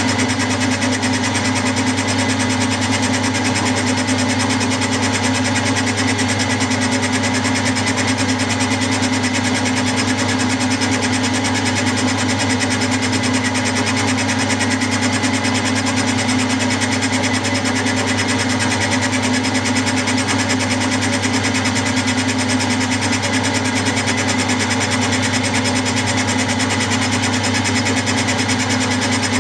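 Milling machine spindle running as a 60-degree dovetail cutter takes a steady cut along the ways of a lathe bed, a continuous even machining sound.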